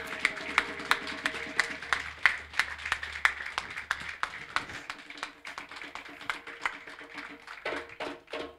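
Audience applauding, many hands clapping irregularly, the clapping thinning out and fading toward the end.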